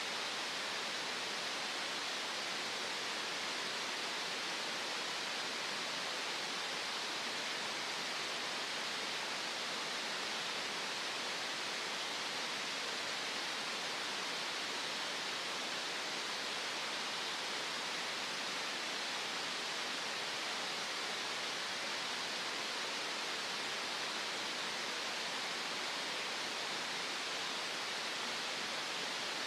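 Synthetic green noise: a steady, even hiss that does not change, with little bass and most of its weight in the upper middle.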